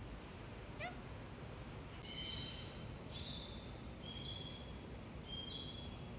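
Birds calling: a quick rising run of short chirps about a second in, then four high-pitched calls of about half a second each, some with a step up in pitch partway through.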